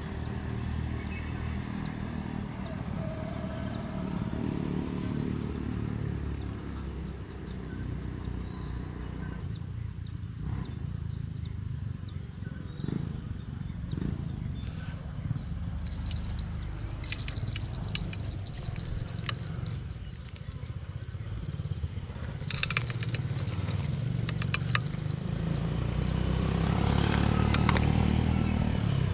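Insects chirring steadily in one high, unbroken tone, joined about halfway through by a second, lower-pitched insect call, over a low rumble with small handling clicks.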